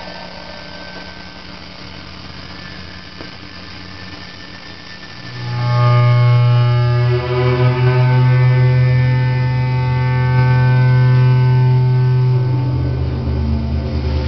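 Eurorack analog modular synthesizer playing a drone: a quiet hum and hiss at first, then about five seconds in a loud, low, buzzy tone with many steady overtones swells in and holds. Near the end the tone steps down in pitch.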